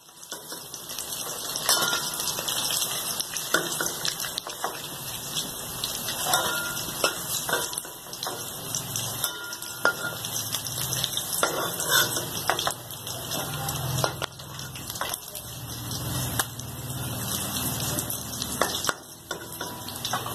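Fish pieces frying in hot oil in an iron kadhai, sizzling steadily, while a metal spatula scrapes and clicks against the pan and a steel plate as the fully fried pieces are lifted out one by one.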